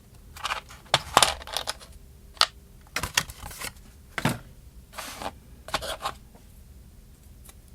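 Small repair tools and plastic pieces from a phone repair kit being handled and set down: a scattered series of light clicks, clinks and short rustles, dying away about six seconds in.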